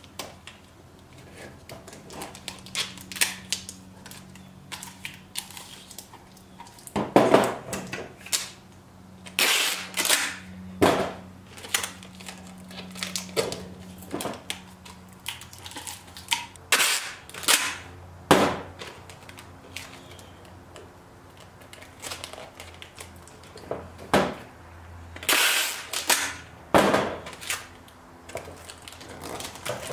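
Clear packing tape being pulled off the roll and torn in repeated short rips as it is wrapped around PVC slugs and elbow fittings, with small clicks and taps of the plastic parts being handled between rips.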